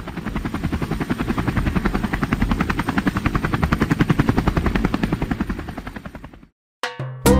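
Helicopter rotor chopping in a fast, even beat that swells up and then fades, stopping about six and a half seconds in. Guitar music starts right at the end.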